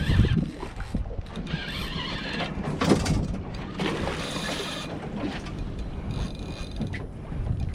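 Small fishing boat on the water: steady water and wind noise with irregular knocks and clatter of gear on deck.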